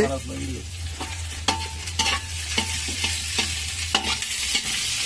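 Food sizzling in a cooking pot while a spatula stirs and scrapes it, clacking against the pot about twice a second. A low hum runs under it for the first three seconds or so.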